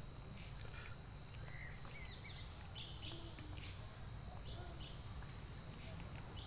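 Faint outdoor background: a steady low rumble and a thin, steady high whine, with a few brief high chirps between about one and a half and four and a half seconds in.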